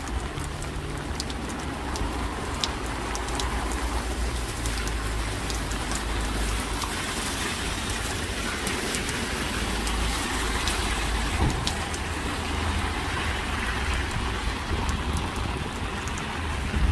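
Steady rain falling on a street, with many sharp drip ticks and a low rumble underneath.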